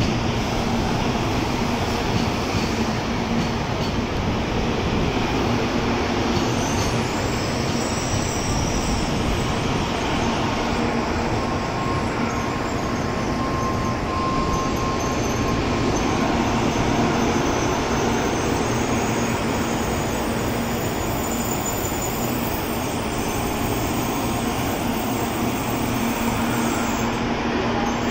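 N700-series Shinkansen train rolling along the platform and slowing as it pulls in: a steady rumble of wheels and running gear with a constant low hum, and faint high squeals partway through.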